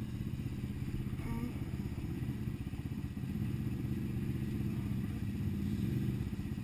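ATV engine idling steadily, a low even rumble.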